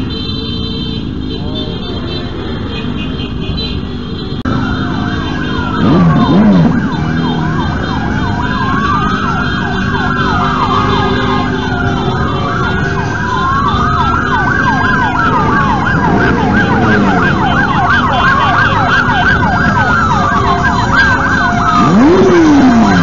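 Several sirens wailing together, their rising and falling sweeps overlapping and repeating every couple of seconds, starting about four and a half seconds in, over the running of motorcycle engines.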